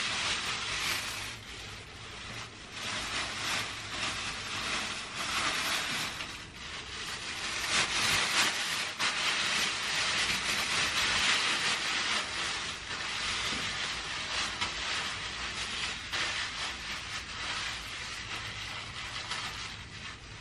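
Thin plastic bag crinkling and rustling as it is wrapped around a bundle of hair, irregular and loudest about eight to twelve seconds in.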